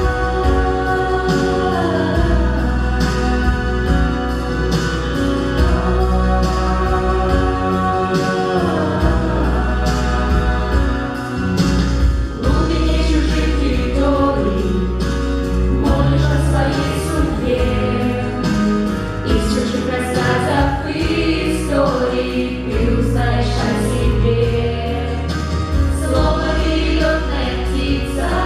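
Pop song on a backing track with a steady drum beat and bass, with singing over it.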